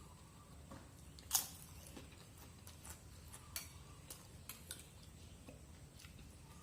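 Faint, irregular small clicks and ticks over a low steady hum, the loudest click about a second and a half in.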